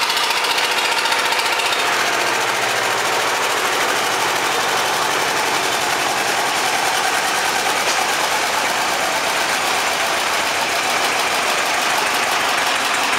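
Zetor 25K tractor's two-cylinder diesel engine running steadily after a glow-plug start, with a rapid, even beat.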